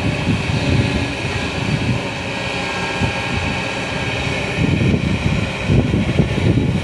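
Excavator's diesel engine running steadily under work, with an uneven low rumble that grows stronger in the last couple of seconds.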